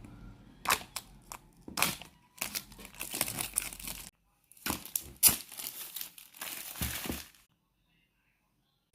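Packaging being crinkled and torn open in irregular bursts of crackling, stopping about seven and a half seconds in.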